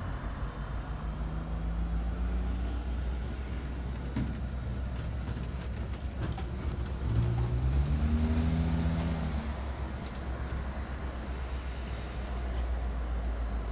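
Diesel locomotive engine of an approaching Union Pacific container train, a deep steady rumble with a low engine note that grows loudest and shifts pitch about seven to nine seconds in. A faint high whine runs underneath.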